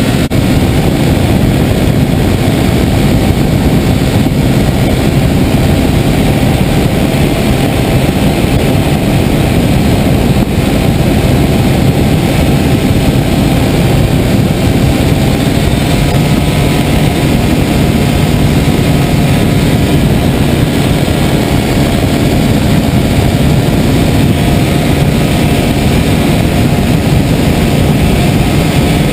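Mosquito NRG powered hang-glider harness's small two-stroke engine and propeller droning steadily in flight, mixed with wind rushing past the microphone.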